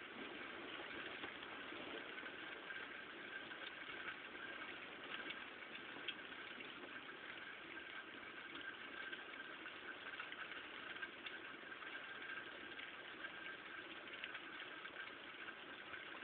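Steady rain falling, with many light ticks of drops striking the window glass and a faint steady high-pitched hum underneath.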